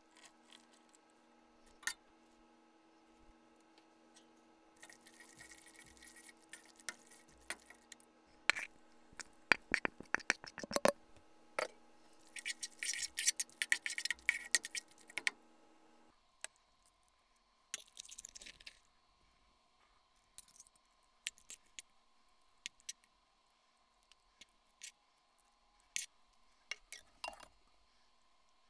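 A kitchen utensil clinks and scrapes against a stainless steel pan while pappardelle is tossed in thick tomato ragu, with a steady hum underneath. The hum stops about halfway through, and a few light clinks of a ladle on a ceramic bowl follow.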